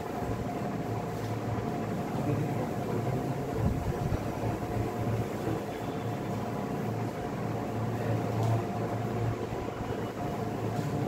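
Steady room noise: a low mechanical hum with a faint constant whine, like a fan or air conditioner running, and a few faint clicks.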